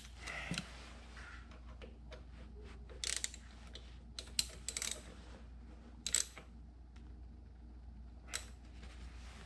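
Scattered light metal clicks and clinks: a set screw on a new crank handle for a drill press table is being snugged with a T15 Torx bit, and the handle is gripped and worked on its shaft.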